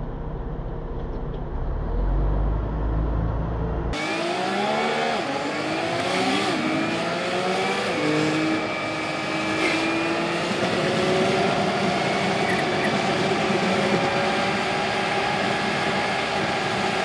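On board a city express bus: a low engine rumble, then after an abrupt cut about four seconds in, the engine and drivetrain note rises in pitch and drops back a few times as the bus pulls away through its gears. It then settles into a steady drone while cruising.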